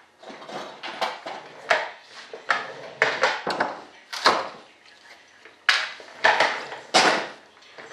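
Short, irregular strokes of a hand tool abrading a hard model-airplane part, about two a second.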